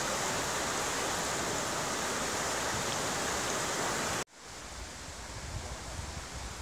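River rapids, white water rushing steadily over rocks. It cuts off suddenly about four seconds in, leaving a much quieter hiss with low gusts of wind on the microphone.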